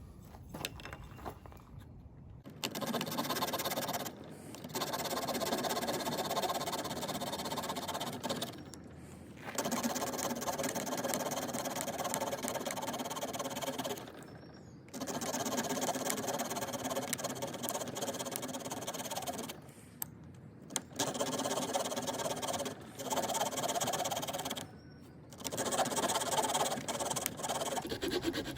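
The small wood saw blade of a Victorinox Fieldmaster Swiss Army Knife sawing through resinous pine fatwood, a fast rasp of short strokes. It runs in several stretches of a few seconds each, with brief pauses between them, as thin wafers and sawdust are cut off.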